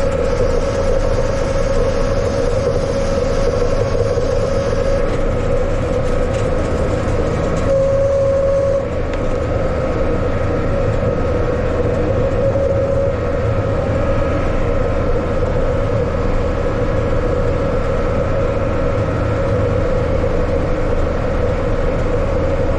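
Yanmar tractor running steadily during raking work, with an even drone and a steady high whine over it.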